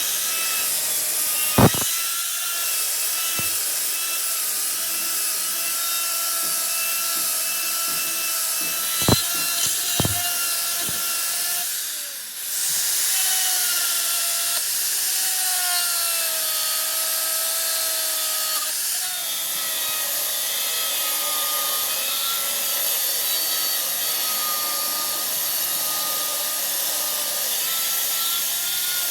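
A machine tool cutting steel for a truck pinion repair: steady cutting noise with wavering whining tones, and a few sharp knocks early on and around a third of the way in.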